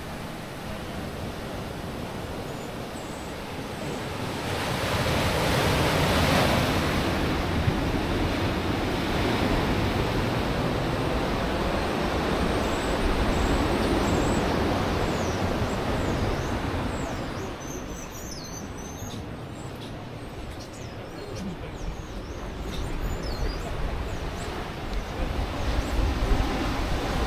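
Ocean surf washing onto the shore: a steady rush that swells louder twice and eases off again.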